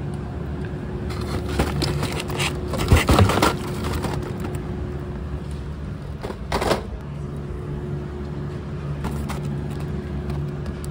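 Steady mechanical hum with a low droning tone, broken by a few knocks and some clatter about three seconds in and again near the middle.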